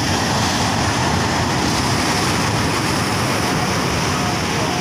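Sea surf breaking on rocks: a steady, loud rush of waves and spray.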